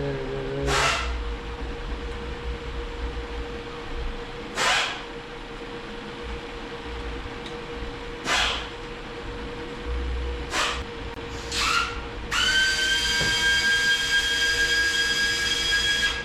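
Compressed-air blow gun: five short blasts of hiss a few seconds apart, then one long blast of about four seconds with a steady whistle in it.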